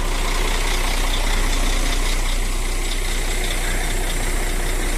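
Semi-truck tractor unit's diesel engine idling steadily.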